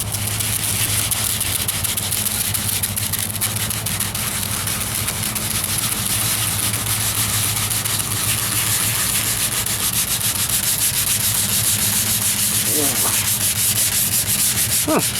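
320-grit sandpaper, folded and held by hand, rubbing back and forth in rapid strokes over dried filler primer on a truck's steel wheel arch. A steady low hum runs underneath.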